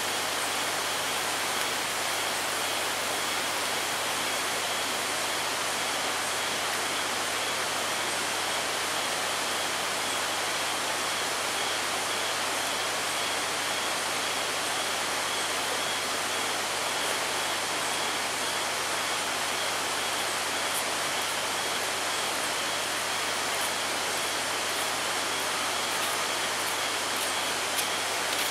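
Steady rush of flowing water, an even hiss, with a faint steady high tone above it and a few small clicks near the end.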